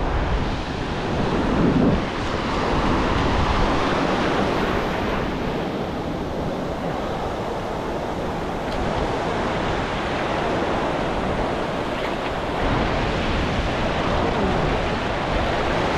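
Ocean surf washing in over shallow sand, a steady rushing wash with wind buffeting the microphone.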